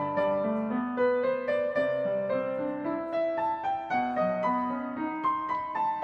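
Background piano music: a gentle arranged piece with a melody over chords, notes struck one after another in a steady flow.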